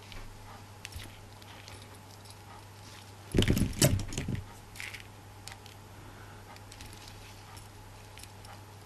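Small metal clicks and jingles of split rings and a clasp being handled, over a steady low hum. A louder bump and rustle comes about three and a half seconds in.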